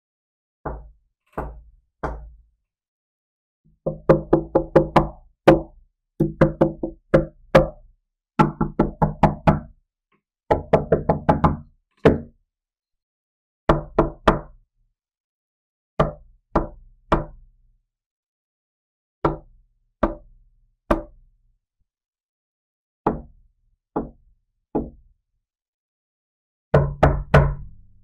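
Knocking on a door in separate groups with dead silence between them. Three slow single knocks come first, then several runs of rapid knocks, then slower sets of two or three knocks, and a last rapid run near the end.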